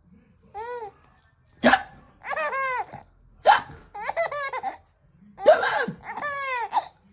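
Hiccups about every two seconds, three in all, each followed by a burst of a six-month-old baby's high-pitched laughter.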